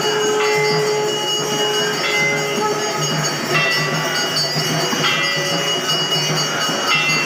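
Temple aarti bells and percussion clanging without a break, with ringing tones that change about every second and a half.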